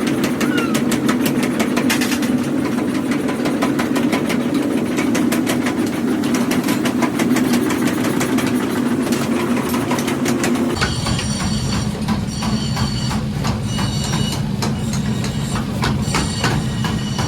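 Hammer blows on iron during forging: a fast, even run of strikes over a steady hum, typical of a mechanical power hammer. About 11 seconds in the hum stops and spaced blows follow, each leaving a high metallic ring.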